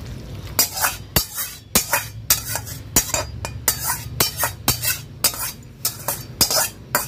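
Metal spatula scraping and knocking against a kadai as cooked curry is pushed out of it into a steel bowl, in quick repeated strokes about three a second, starting about half a second in.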